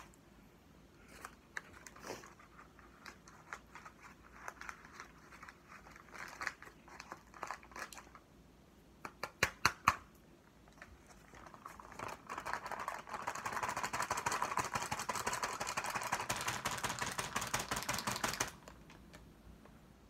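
Cornstarch being chewed, with soft crunches. Then a quick run of sharp clicks and about six seconds of steady plastic-bag crinkling that stops abruptly.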